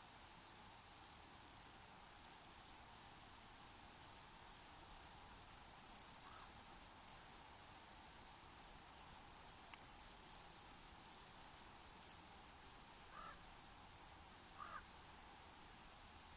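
Faint cricket chirping steadily at about three high-pitched chirps a second over a soft steady hiss, with one sharp click a little before the middle.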